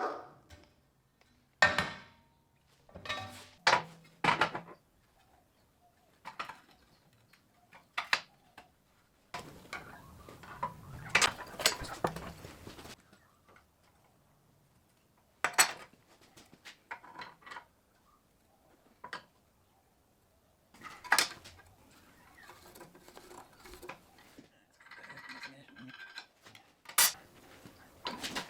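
Metal parts and tools being handled: scattered sharp clinks and knocks of steel, with a few seconds of steady noise about ten seconds in.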